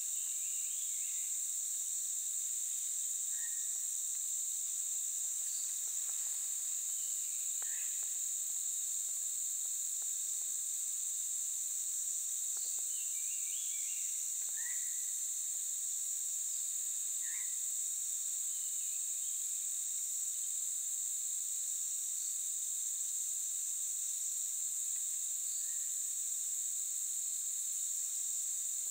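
Steady, high-pitched chorus of insects droning without a break, with scattered short, faint calls over it.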